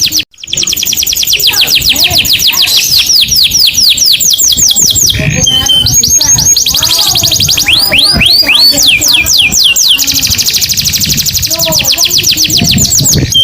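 Canary song: fast trills of high, repeated down-sweeping notes, changing to a new trill type several times, with a short held whistle about five seconds in. The sound breaks off for a moment just after the start.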